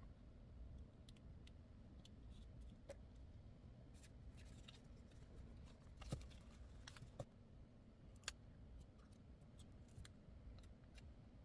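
Near silence with low room noise and scattered faint, sharp clicks and taps, a few of them louder about six, seven and eight seconds in.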